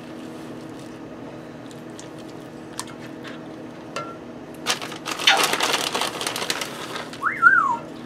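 Faint clicks of a spoon and falling shredded cheese in a pan of warm milk sauce, over a steady low hum. About five seconds in comes a burst of noise from the front door opening elsewhere in the house, and near the end a short high cry that rises and falls twice, from an excited pet greeting someone coming home.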